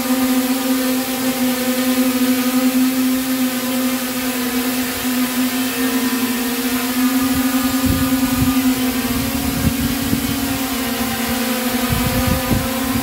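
Small quadcopter's motors and propellers buzzing steadily as it hovers under optical-flow and lidar position hold, the pitch wavering a little. Low rumbles come and go in the second half.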